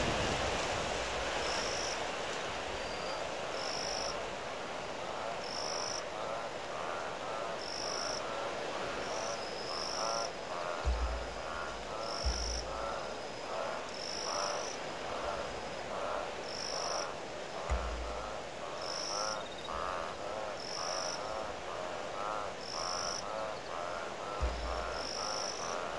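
A chorus of frogs calling in rapid, repeated pulsed croaks at a waterhole, starting about three seconds in as a windy hiss eases. A short high chirp comes every two seconds or so, and a few low thumps of wind gusts hit the microphone.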